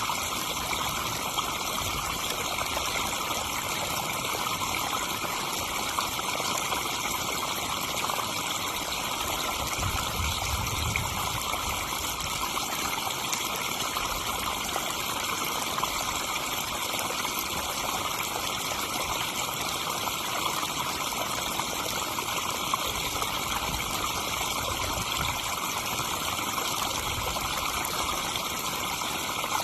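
Backyard pond waterfall: water spilling and splashing into the pond in a steady, unbroken rush.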